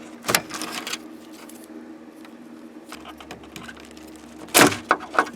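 Plastic wiring-harness plugs being worked loose and unplugged by hand: scattered sharp clicks and rattles, the loudest few close together near the end, over a steady low hum.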